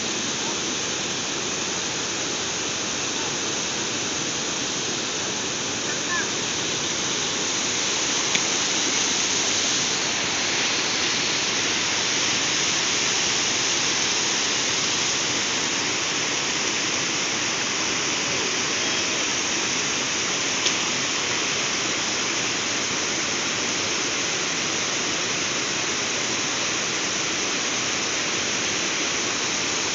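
Water pouring over a low concrete weir into a churning, foamy pool: a steady rush that grows a little louder about a third of the way in. Two faint clicks stand out, one about a third of the way in and one about two-thirds in.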